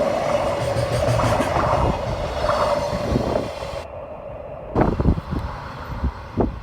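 Freight train passing: a steady whine over rumbling wheel noise that dies away after about three and a half seconds, followed by a few sharp knocks.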